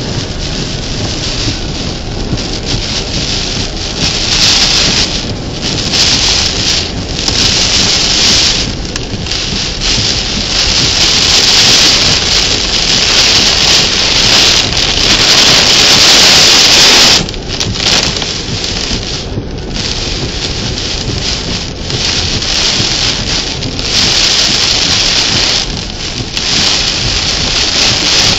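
Heavy thunderstorm rain driven by strong wind, swelling and easing in gusts. It is loudest in a long surge through the middle, then drops off suddenly about 17 seconds in.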